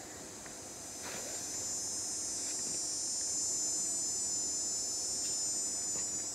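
Insects buzzing in a high, steady chorus that swells louder about two seconds in and holds.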